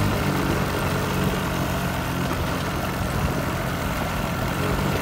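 An engine running steadily, a low even hum under a constant hiss.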